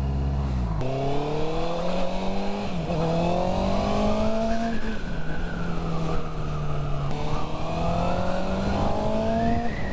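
Honda CB650R inline-four through an IXIL Hyperlow XL aftermarket exhaust, accelerating from low revs with the pitch climbing in each gear. Quick upshifts cut the revs about three seconds in, about five seconds in and just before the end, with a steady rush of wind underneath.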